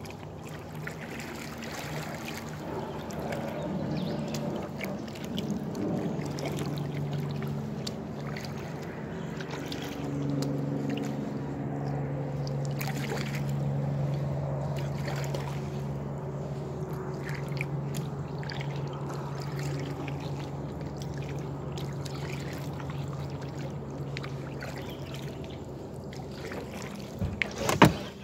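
Kayak paddling: paddle strokes dipping and water trickling off the blades, with a steady low drone underneath. A sharp knock comes near the end.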